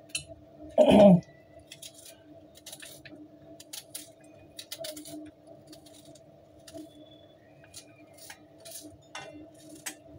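Knife dicing a red onion held in the hand, with many small clicks and clinks as the blade cuts and pieces drop into a steel bowl. A steady low hum runs underneath, and one brief louder sound comes about a second in.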